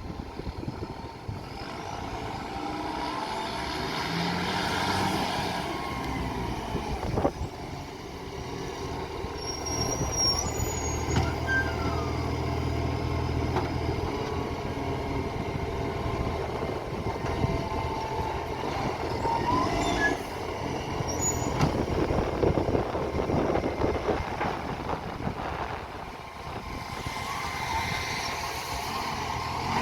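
Garbage truck engine running and working, with changing engine pitch, a sharp click about seven seconds in, and a busier, noisier stretch near the end. The truck has an exhaust leak.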